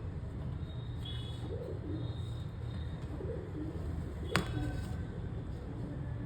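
Pigeons cooing softly over a steady low hum, with one sharp click about four seconds in.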